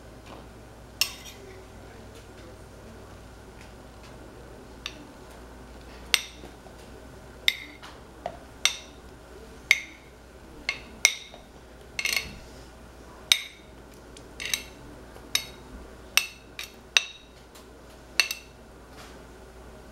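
A spoon clinking against a ceramic serving dish and plastic cups as diced tomato is spooned into the cups: sharp, ringing clinks at an uneven pace, sparse at first and coming about once a second from about six seconds in.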